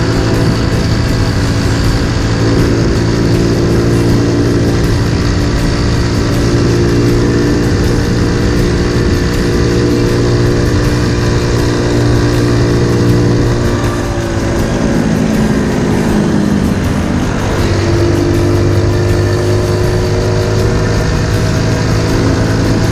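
Honda Super Cub 50 with a 75cc bore-up, its small single-cylinder engine running steadily under way. About fourteen seconds in, the engine note drops, then picks up again a few seconds later and holds steady.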